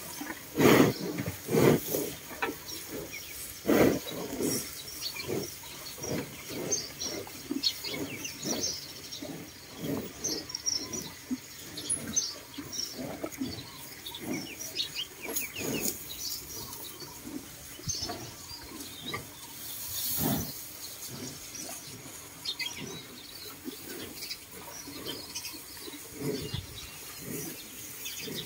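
Dairy cows tearing at and chewing dry hay at a feed rail: irregular crunching and rustling of straw, one or two strokes a second, with small birds chirping faintly in the background.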